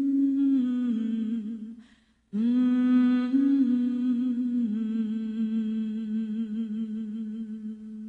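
Wordless humming voice carrying a slow melody in held notes that step from pitch to pitch, with a slight waver on the longer notes. It breaks off briefly about two seconds in, then resumes.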